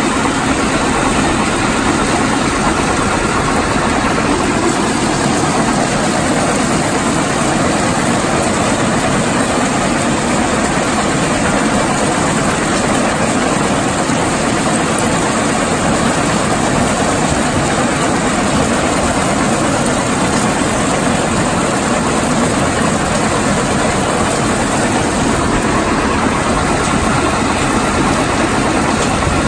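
Yongwon SP300 Super cone crusher (M type) running at 1050 rpm and crushing rock, together with the conveyors carrying the crushed stone: a steady, loud mechanical din.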